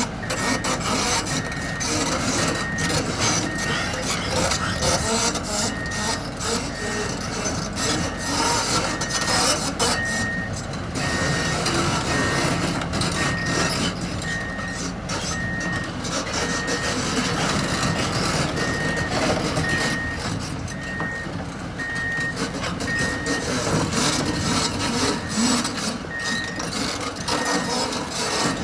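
Volvo EC240LC hydraulic excavator with its Cummins six-cylinder diesel running under work, with gritty scraping and clatter, over which its motion alarm beeps a steady high tone about one and a half times a second. The beeping stops a few seconds before the end, then returns briefly.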